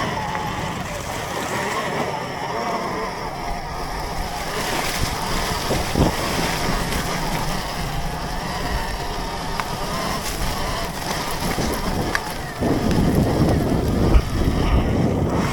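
Surron electric dirt bike riding through a muddy field, with tyre and drivetrain noise under heavy wind on the microphone. The low rumble grows louder about three-quarters of the way in.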